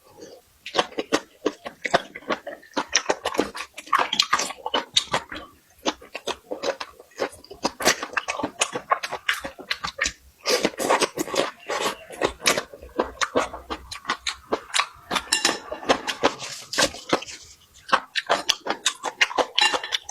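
Close-up chewing and lip-smacking while eating, a quick, uneven run of smacks and clicks with a few brief pauses.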